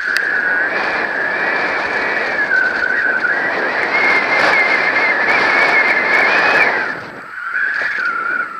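Mountain bike riding fast downhill on a dirt and gravel trail: steady rush of tyre and wind noise with a high whine that wavers up and down in pitch, and scattered sharp clicks. The noise drops off about seven seconds in.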